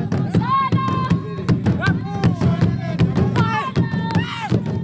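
Traditional Zulu drums beaten with sticks in a fast, steady rhythm, with high calls from the performers sliding up and down in pitch over the beat.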